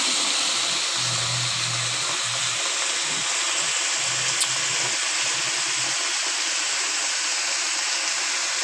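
Grasshoppers deep-frying in hot oil in a wok, a steady sizzle, with a single small pop about four seconds in.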